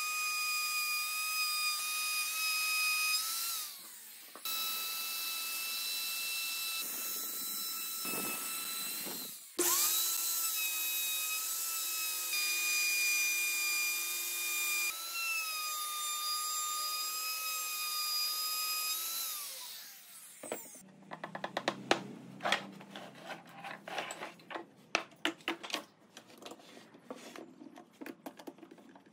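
A high-pitched power tool motor running steadily. It cuts out briefly twice, then winds down with a falling pitch. After that come irregular sharp knocks and clicks.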